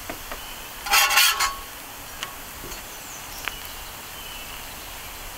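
A metal spatula scrapes across the steel flat-top griddle once, for about half a second, about a second in, as a tortilla is worked. A faint steady hiss and a few light ticks run under it.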